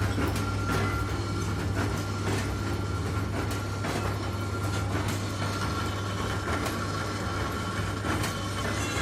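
Lathe running while cutting an internal thread in a heavy workpiece: a steady low machine hum with a thin high whine above it and irregular ticks and scrapes from the cutting tool.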